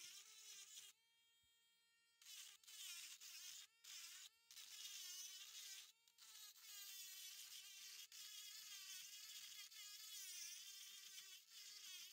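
Dremel rotary tool grinding into fossil shell rock: a high motor whine under a gritty grinding hiss, the pitch sagging whenever the bit is pressed into the rock and recovering as it eases off. The grinding breaks off briefly several times, and about a second in it drops away for about a second, leaving only the quieter steady tone of the spinning motor.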